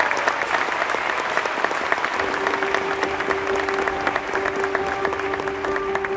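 Theatre audience applauding after a song ends. About two seconds in, a soft held chord of music enters under the clapping.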